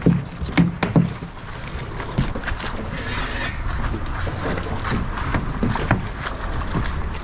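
Steady wind noise on the microphone over water lapping at a small boat, with a few sharp knocks and clicks, mostly in the first second, as a sheepshead and the tackle are handled on the fiberglass deck.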